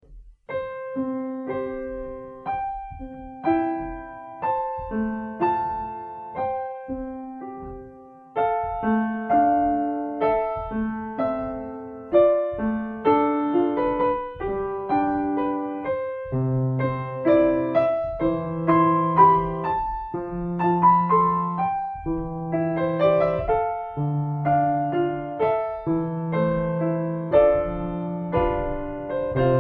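Background music: a piano piece of struck notes and chords, each fading after it sounds, with lower bass notes joining about halfway through.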